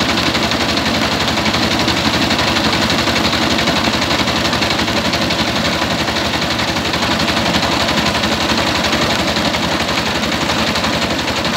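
Engine-driven rice huller milling paddy, running with a steady, rapid mechanical clatter over a rushing noise of grain through the machine.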